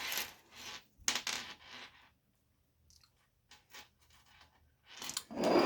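Small metallic clinks and scrapes of brass plumber's chain links and flat-nose pliers as a link is fitted onto the chain: a handful of sharp clicks in the first two seconds, a few faint ticks later, and a louder rustling handling noise near the end.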